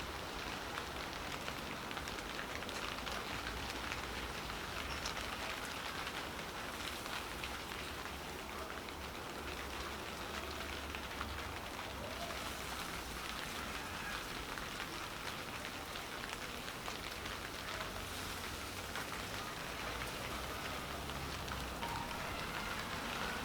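Steady rain falling, an even hiss that holds at a constant level throughout.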